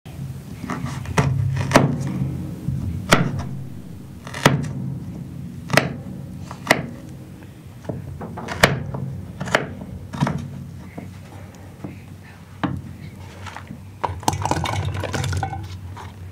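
Kitchen dishes and cutlery knocked and clinked together: a series of sharp, irregular clinks with short ringing, about a dozen in all, turning into a busier clatter near the end.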